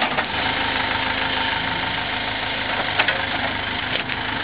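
Excavator's diesel engine running steadily while its bucket digs into turf and soil, with a sharp knock about three seconds in and another near the end.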